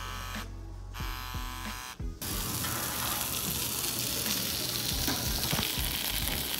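A steady electrical hum, then, from a sudden change about two seconds in, a steak sizzling on a hot skillet with a steady hiss.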